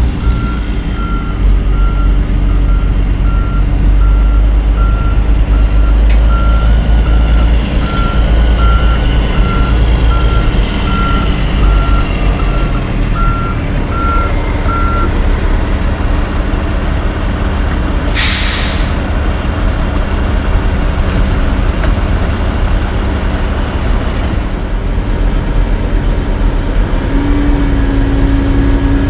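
Kenworth tandem dump truck's Caterpillar diesel running as the truck backs up, its reversing alarm beeping evenly through the first half. About two-thirds of the way in comes a loud air-brake hiss as it stops. A steady low hum starts near the end.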